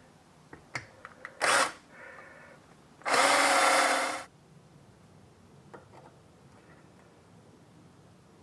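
Power drill run in two short bursts, a brief blip and then about a second of running, with a few light clicks of handling before them.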